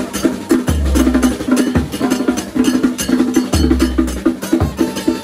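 Live brass band with drums playing dance music: trombones and a sousaphone repeat a short riff, with a long low bass note about every three seconds, over fast drumming.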